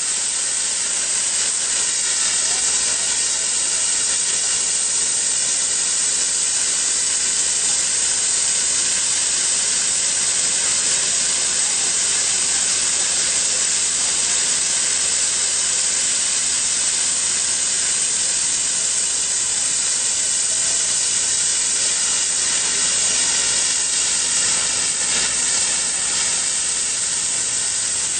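Hypertherm Powermax plasma cutter torch hissing steadily and loudly as the arc cuts, with no break.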